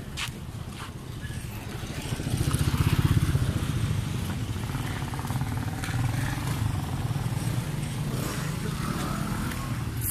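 A motor vehicle engine running, growing louder about two seconds in and then holding steady.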